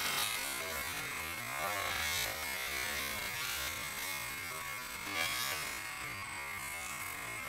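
Steady hiss and low hum with a thin, high, steady whine, swelling softly a couple of times; no bang.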